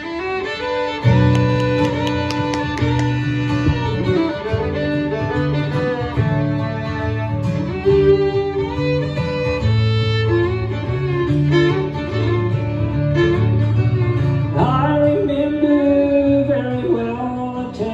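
Fiddle and acoustic guitar playing a bluegrass instrumental introduction, the fiddle carrying the melody over a strummed guitar rhythm.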